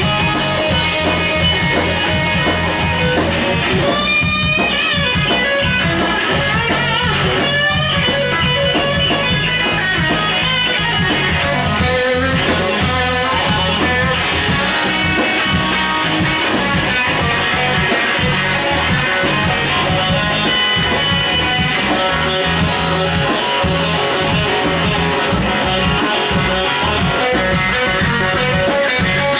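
A live blues-rock band playing, led by a sunburst Stratocaster-style electric guitar, with bent notes that glide up in pitch a few seconds in.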